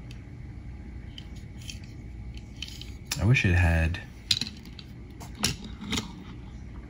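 Light clicks and taps of Hot Wheels die-cast toy cars being handled and set down on a wooden tabletop, several separate knocks. A brief murmur of a man's voice a little past three seconds in.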